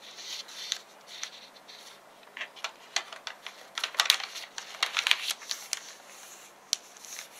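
Origami paper being folded in half, creased and opened out by hand: crisp rustling and sharp crinkles, thickest about four to five seconds in.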